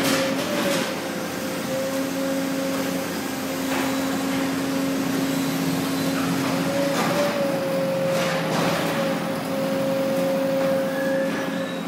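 Hay compression press and forklift machinery running: a steady humming drone that wavers briefly a couple of times, with several short bursts of hissing and clunking.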